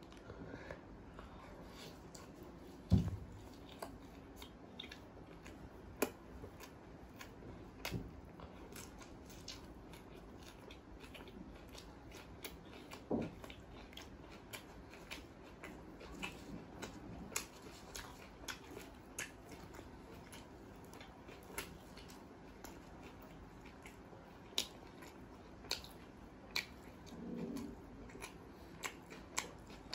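Close-miked eating sounds: scattered wet mouth clicks and smacks as butter naan with kadhai paneer is chewed, with one sharp low thump about three seconds in.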